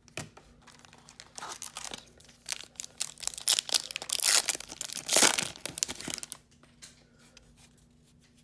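A hockey card pack's wrapper being torn open and crinkled: a run of crackling and rustling, loudest about four to five seconds in, that dies down after about six seconds.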